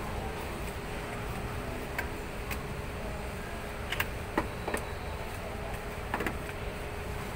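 Steady supermarket background noise with a faint hum, broken by a handful of short sharp clicks and knocks, the loudest about four seconds in.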